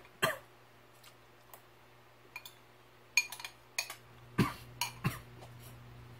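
Metal spoon clinking against a ceramic bowl of hardtack biscuits in milk: a scattering of short, sharp clinks, most of them between about three and five seconds in.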